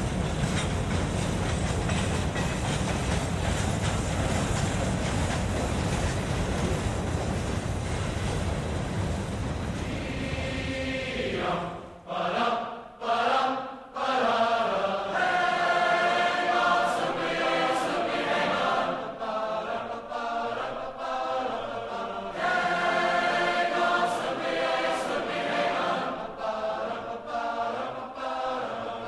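Freight train's hopper cars rolling past, a steady noise of wheels on rail. About twelve seconds in it stops abruptly and choral music with chanting voices takes over.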